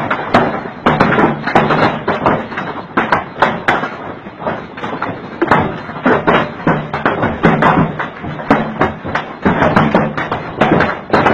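Large hailstones pelting down in a violent hailstorm: a dense, irregular clatter of hard impacts, several loud strikes a second.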